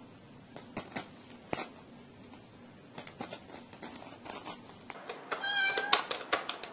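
Faint scattered taps, then a single meow held at one steady pitch for about half a second, followed by a quick run of clicks.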